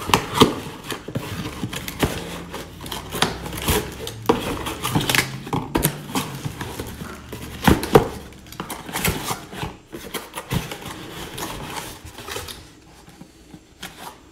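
Hands handling a cardboard box and the cardboard packing inserts inside it: irregular scraping, rustling and light knocks, quieter near the end.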